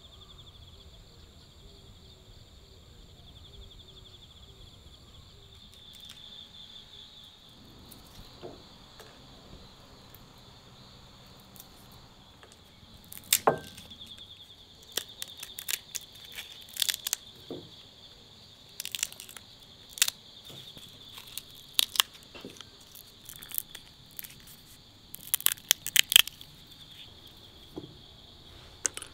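Insects chirring steadily in a high, finely pulsing drone. From about halfway through, a run of sharp cracks and crinkles of something dry and brittle being broken and handled by hand.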